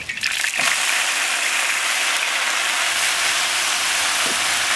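Water spinach stir-frying in hot lard in an iron wok: a loud, steady sizzling hiss.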